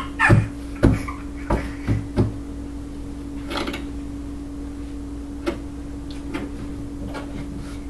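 A baby's hands slapping and patting on the lid of a flat cardboard box: a quick run of about five dull thumps in the first two seconds or so, then two more scattered thumps later.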